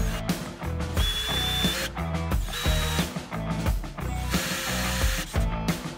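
Milwaukee cordless drill drilling into square steel tubing in a few short runs, over background music with a steady beat.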